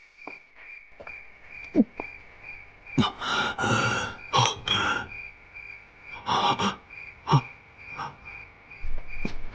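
A person's breathy gasps: a series of short bursts over a steady high-pitched background tone.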